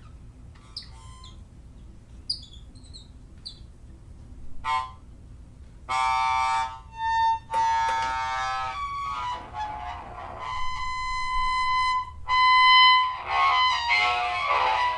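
Experimental electronic noise music. It opens with sparse, short chirping blips. From about six seconds in come loud buzzing tones full of overtones that squawk and waver. These settle into a steady held tone about ten seconds in, and turn into a denser noisy wash near the end.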